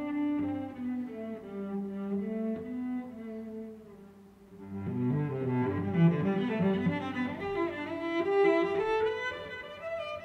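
Background music: a slow melody on low bowed strings, dipping quietly about four seconds in before a fuller passage.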